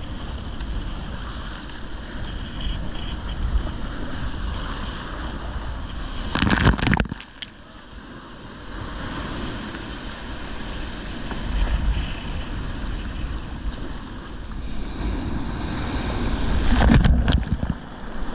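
Surf breaking over rocks and whitewater rushing around a sea kayak, with wind buffeting the microphone. Two loud splashing crashes, about six seconds in and again near the end.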